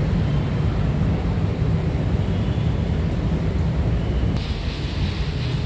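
Steady low rumbling noise, with a brighter hiss joining about four seconds in.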